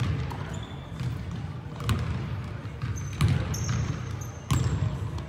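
Basketball bouncing on a hardwood gym floor: four separate bounces at uneven intervals, each echoing in the large hall.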